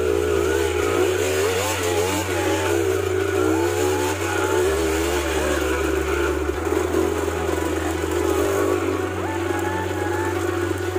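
Dirt bike engines revving and labouring, rising and falling with the throttle, over background music with a low bass line stepping between notes every couple of seconds.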